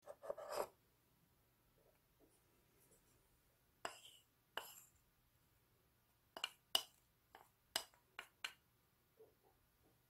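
Wooden spoon tapping and scraping against a small ceramic bowl while chopped chives are pushed off onto the plate: a scattered series of short, light clinks and taps, with a brief rustle at the start.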